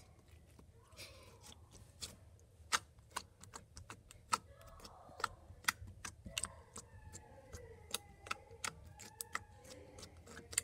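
Glittery slime being poked, pressed and stretched by hand, giving off a scatter of sharp, irregular clicks and pops.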